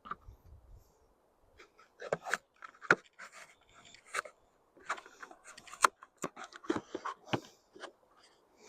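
Kitchen knife cutting a raw sweet potato into thick wedges, with no cutting board: a run of irregular clicks, cracks and knocks as the blade goes through and strikes the surface.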